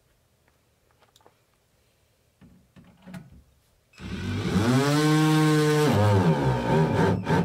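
Cordless drill-driver running a self-tapping screw into sheet-metal cladding. After a few faint taps, the motor spins up about four seconds in, runs with a steady whine for about two seconds, then slows and drops in pitch before stopping.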